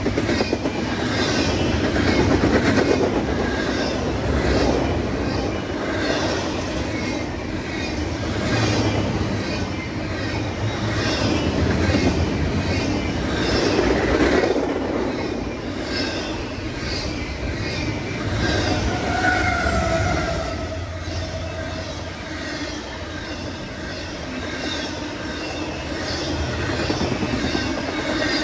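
A train rolling past, its wheels clacking over the rail joints in a steady rhythm, with a brief metallic wheel squeal about two-thirds of the way through.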